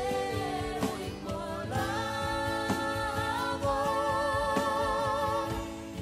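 Spanish-language Christian worship song: voices sing long held notes over a band with steady drum beats, and a fuller sustained sung line comes in about two seconds in.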